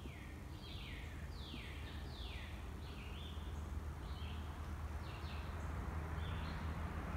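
Dry-erase marker squeaking across a whiteboard in a run of short strokes, about two a second, each a brief falling squeak, as words are written. Birds chirp faintly over a low steady outdoor hum.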